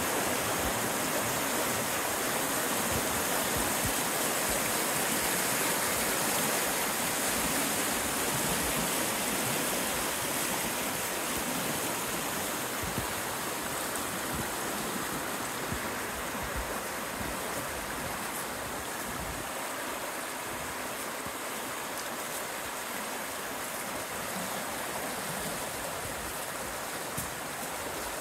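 A swollen, muddy creek in high flow, its fast water rushing steadily, easing slightly in loudness through the second half.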